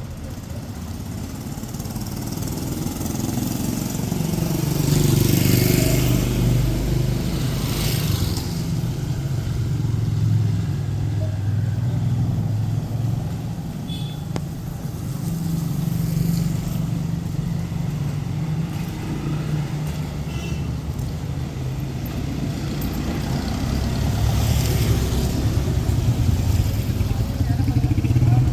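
Street traffic: motor vehicles, motorcycles among them, running and passing close by one after another, with tyre hiss swelling as each goes past.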